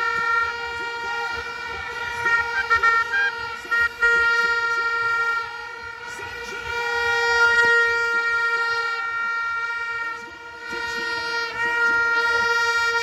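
Horns blown by a stadium crowd: long, held horn tones overlapping, with a few short toots about three seconds in and brief dips about five and a half and ten seconds in.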